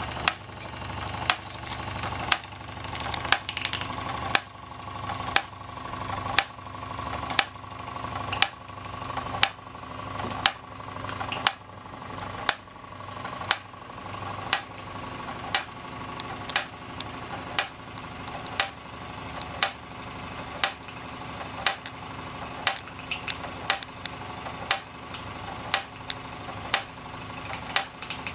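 Gas-fired Jensen #35 model steam engine running steadily, driving belt-driven toy workshop machines through line shafts. Steady mechanical running noise, with a sharp click about once a second.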